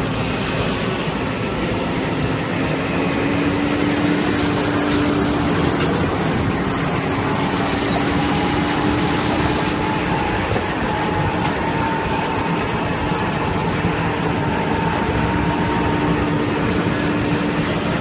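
JCB Fastrac tractor engine running steadily under load as it pulls a bale stacker, a steady hum that rises slightly in pitch, over a constant rush of noise.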